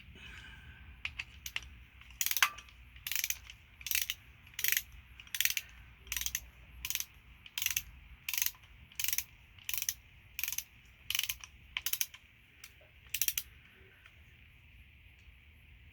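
Hand ratchet wrench being worked back and forth to run a bolt in, about sixteen even strokes, each back-swing a short burst of pawl clicks.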